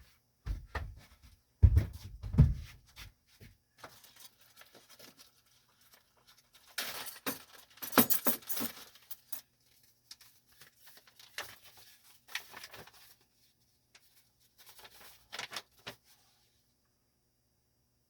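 Plastic door trays of a Dometic refrigerator being lifted out and handled. A few dull thumps come in the first three seconds, a louder rattling clatter about seven to nine seconds in, and then scattered light clicks and knocks.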